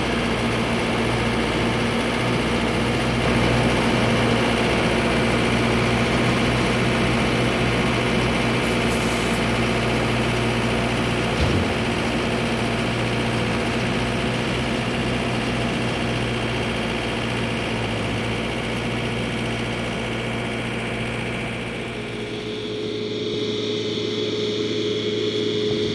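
John Deere 5083E tractor's diesel engine running steadily while pulling a John Deere 459 round baler, with a single knock about midway as the baler's tailgate shuts. Near the end the sound changes to a smaller John Deere tractor's engine with a steady whine.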